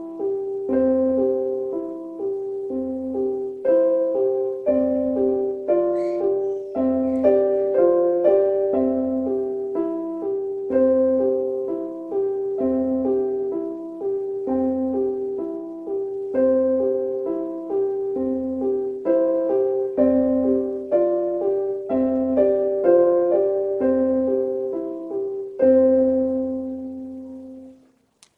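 A child playing a short piano piece on an electronic keyboard. An even bass note falls about once a second under the melody, and the piece ends on a held final chord that dies away near the end.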